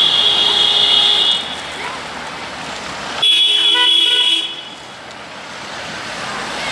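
Vehicle horns honking as a line of vans drives past. One long blast stops about a second and a half in, and a second blast sounds a little after three seconds in and lasts about a second. Passing engines and tyres are heard between and after the blasts.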